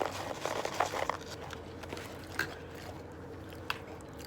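Close-up mouth sounds of a person biting and chewing a McDonald's burger: a quick run of wet smacks and clicks in the first second, then occasional single clicks, over a faint steady hum.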